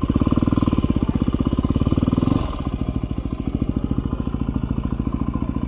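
Yamaha WR250R's 250 cc single-cylinder four-stroke engine running at low speed as the bike is ridden slowly to park, with an even chug of exhaust pulses. It is a little louder for the first two seconds or so, then eases back toward idle.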